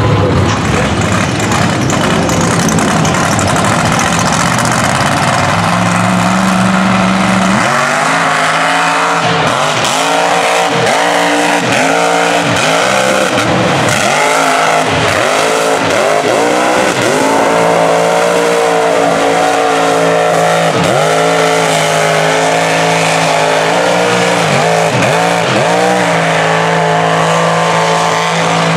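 Supercharged big-block V8 of a tractor-tire Chevy Colorado mud truck running at high revs, loud throughout. For the first eight seconds or so it holds fairly steady, then the revs dip and climb again and again as the driver works the throttle through the mud.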